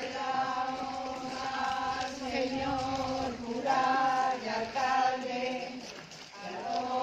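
A group of women singing a hymn to the Virgin together as they walk in procession, holding long notes, with a short break about six seconds in before the next phrase.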